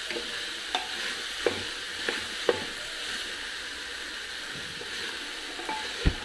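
Diced potatoes sizzling steadily in hot oil in an open aluminium pressure cooker, with a wooden spatula clicking against the pot a few times as they are stirred and one louder knock near the end.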